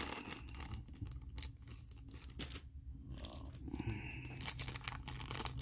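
Thin clear plastic zip-lock bag crinkling and rustling as it is handled and pulled open by hand, with irregular small crackles.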